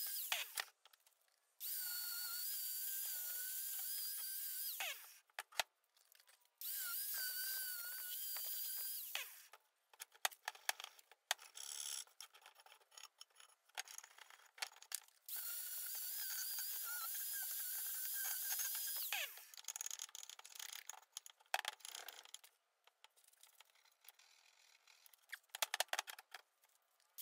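Angle grinder running in short bursts of about three seconds, four times, with a steady, slightly wavering high whine as it grinds rust and grime off a steel bumper bracket. Between the bursts come scattered scrapes and clinks of metal being handled and scrubbed with a hand wire brush.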